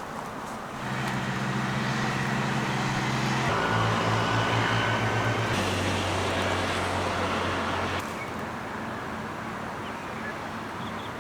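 A motor vehicle engine running steadily, its pitch dropping in two steps about three and a half and five and a half seconds in, then fading out about eight seconds in.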